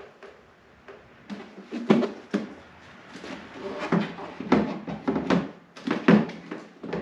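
Irregular knocks and clatter of snowmobile parts being handled and fitted back in place during reassembly, with the sharpest knocks about two seconds in and again late on.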